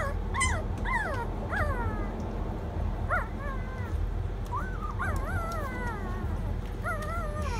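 Young Rottweiler–Doberman cross puppy whining: a run of short, high cries, each rising then falling in pitch, with a pause of about a second and a half after the first four.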